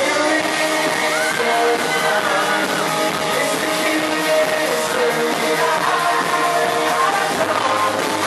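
Live pop-rock band music with guitar and singing, played through a venue sound system.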